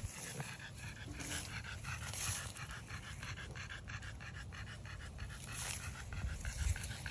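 French bulldog panting with quick, evenly spaced breaths.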